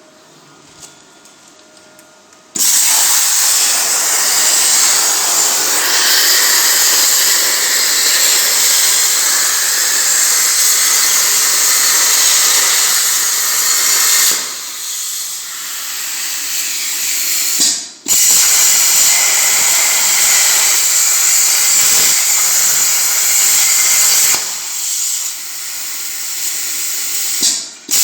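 CNC plasma cutting machine cutting sheet metal. The plasma torch's loud steady hiss starts abruptly about two and a half seconds in. Twice it drops to a softer hiss for about three seconds, then the arc fires up again.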